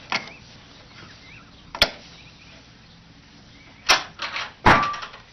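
Knocks and rattles of a wooden cat puzzle box as its latch and door are worked. Two clacks at the start, a single sharp knock near the middle, and a louder cluster of rattling knocks near the end.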